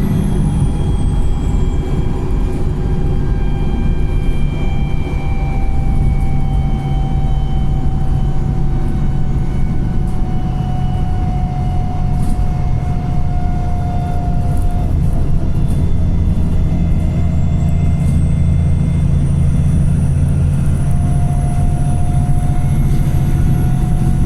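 Wright Pulsar single-deck bus under way, its engine and driveline giving a steady heavy rumble. A high whine falls away in the first couple of seconds and climbs back up over the last several seconds as the bus picks up speed again.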